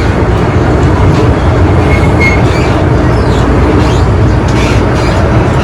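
MTR M-train running at speed, heard from inside the carriage: a loud, steady rumble of the wheels on the rails and the traction equipment.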